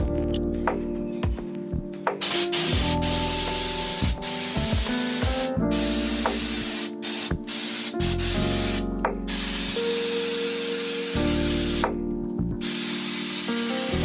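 Raptor bed-liner coating being sprayed from an air-driven spray gun: a loud, steady hiss that starts about two seconds in and cuts off briefly several times as the trigger is released, over background music.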